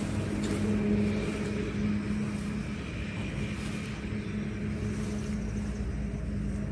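A steady, low engine-like hum.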